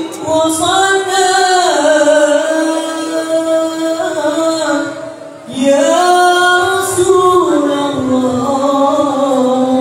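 A young man singing sholawat (Islamic devotional song) solo into a microphone, amplified over a sound system. Long held notes slide up and down in two phrases, with a short breath about five seconds in.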